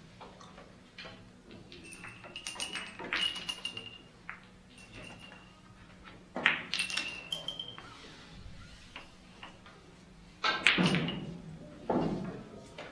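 Billiard balls striking one another in a series of sharp, ringing clicks. Near the end come two louder, duller knocks.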